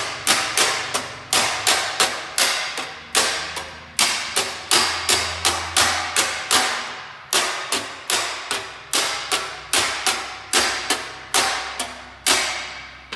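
Body hammer tapping a welded steel sheet-metal panel against a dolly, a steady run of sharp metallic strikes about two to three a second, each ringing briefly. The tapping is raising a low spot in the panel.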